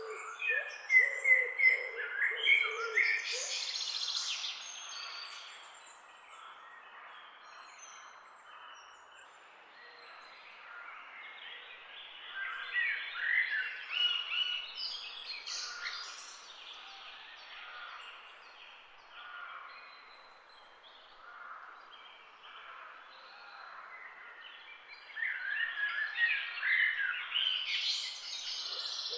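A chorus of songbirds chirping and singing, several calls overlapping. It is busiest at the start, around the middle and near the end, with quieter scattered chirps in between, and a lower repeated call under the chirps in the first few seconds.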